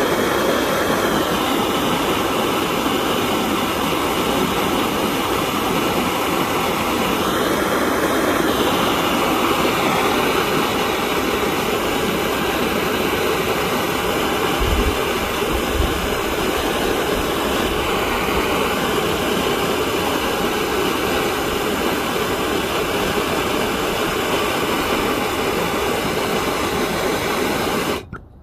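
Hose-fed gas torch's flame running with a steady roar as it heats a copper pipe joint to soldering temperature. The sound cuts off suddenly just before the end.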